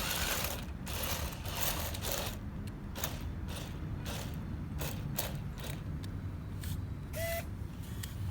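Small geared motors and 3D-printed gears of a model robotic tow truck's hoisting and cranking mechanism running, with a steady low hum under irregular clicks and rattles. A brief beep comes near the end.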